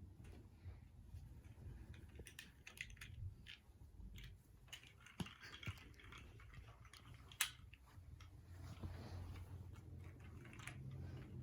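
Near silence: a quiet room with faint scattered small clicks and soft rustles, and one sharper click about seven seconds in.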